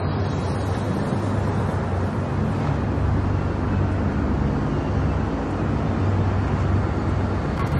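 Steady low rumble with a faint hum, the background noise inside a cruise ship.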